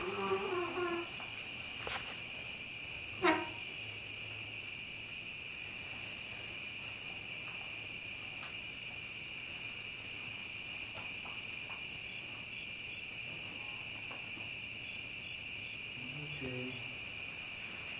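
Crickets trilling steadily in one continuous high-pitched chorus, with a single sharp knock about three seconds in.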